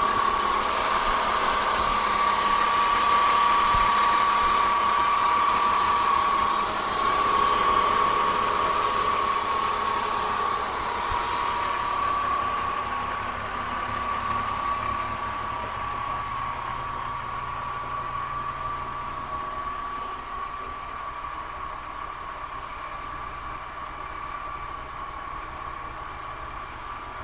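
BMW M54B30 3.0-litre straight-six idling with a light ticking rattle that the owner cannot identify, over a steady high whine. It grows gradually quieter over the second half.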